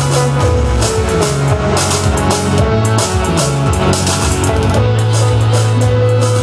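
Rock band playing live: drum kit with cymbals, electric guitar and bass guitar holding sustained bass notes.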